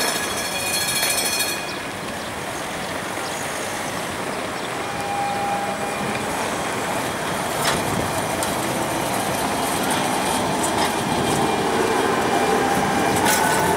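Siemens articulated low-floor tram approaching and passing close by on its rails: a steady running noise of wheels and motors amid traffic, with a high whine growing as it goes past in the last few seconds. A rapid rattle stops about a second and a half in.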